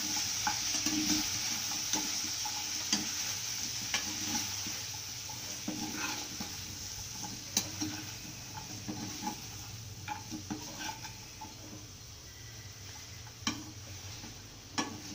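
Metal spatula stirring chunks of chicken, raw plantain and coconut in a hot non-stick pan: a steady sizzle of frying with repeated clicks and scrapes of the spatula against the pan. The sizzle gets gradually quieter.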